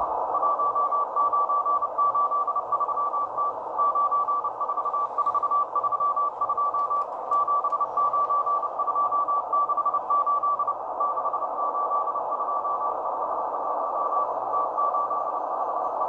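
Russian M12 number station sending Morse code, received on a Tecsun PL-330 shortwave radio in upper sideband on 13925 kHz. A single beeping tone of about 1 kHz keys on and off in dots and dashes over a steady band of static hiss. The owner thinks the radio may be slightly off frequency, which shifts the tone's pitch.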